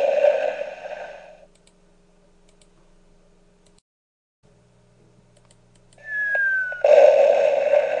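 Explosion sound effect fading out over the first second and a half, then faint clicks. About six seconds in, a falling whistle sound effect drops in pitch, and about a second later a second explosion sound effect hits and is still sounding at the end.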